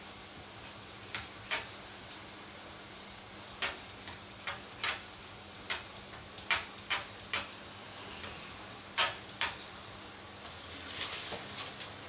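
Blade of a Victorinox Swiss Army knife drawn across a whetstone in hand sharpening: about a dozen short, sharp scrapes at irregular intervals, followed near the end by lighter clicks as the knife is handled.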